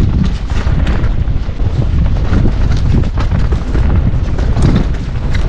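Mountain bike ridden fast down a loamy forest dirt trail, heard from the rider's camera: a heavy, steady wind rumble on the microphone, with frequent quick rattles and knocks from the bike as it goes over the ground.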